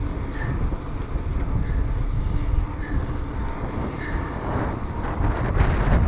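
Wind rushing over an action camera's microphone on a moving bicycle: a steady low rumble that turns rougher and a little louder near the end.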